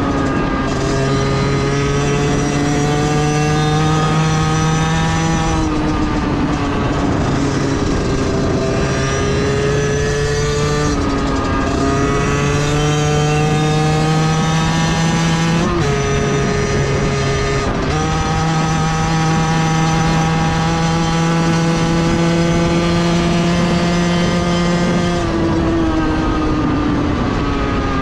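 Beta 50cc two-stroke motorcycle engine pulling hard, its pitch climbing slowly for several seconds and then dropping sharply, over and over, as it changes gear.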